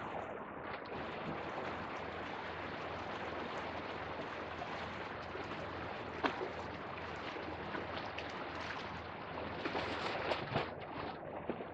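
Small sea waves washing and lapping against shoreline rocks, a steady wash with a sharper splash about six seconds in and a few more near the end.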